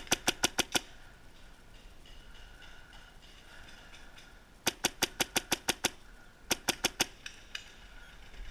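Paintball marker firing in rapid strings: a burst of about six shots at the start, a longer burst of about nine a few seconds later, then about five more, roughly seven shots a second, with a couple of fainter single shots near the end.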